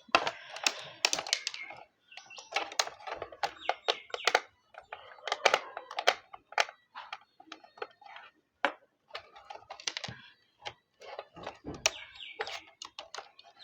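Irregular plastic clicks and clacks as the back cover of a rechargeable battery table fan is pried loose and handled.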